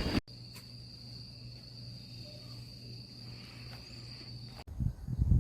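Insects trilling in one steady high note over a faint low hum, broken off by a sudden cut near the end, after which irregular low rumbles follow.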